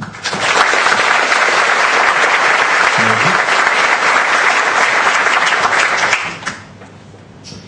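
Large audience applauding for about six seconds, then dying away.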